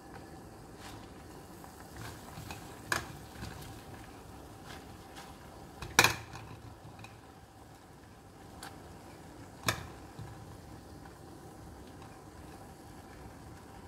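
Three sharp knocks against a granite-coated cooking pot as sweet potato leaves are pushed into it, the loudest about six seconds in, with a few lighter taps between.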